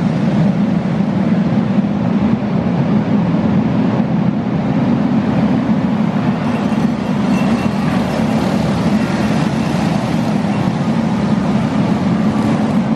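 A pack of outlaw racing karts running together on a dirt oval: a loud, steady, blended engine drone.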